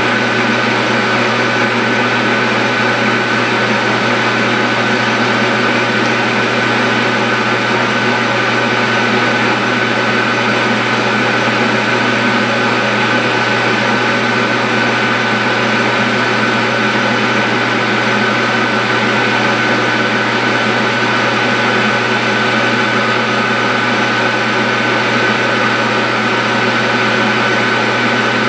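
Metal lathe running steadily while a cutting tool faces the end of a 12L14 steel piston-stock bar, with a steady high whine over the machine's hum.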